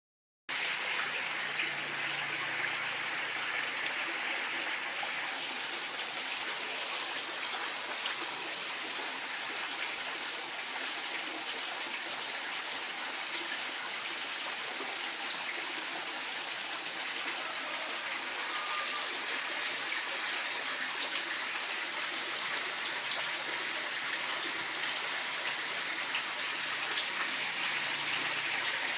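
Water pouring steadily from a pipe into a plastic tub, splashing on the surface.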